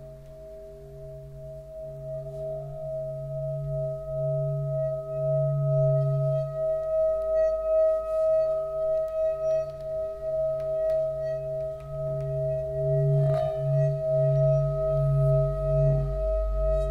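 Sustained metallic ringing of a sound-bath instrument in a few steady tones, the lowest one pulsing in a slow wavering beat. It swells over the first several seconds and then holds.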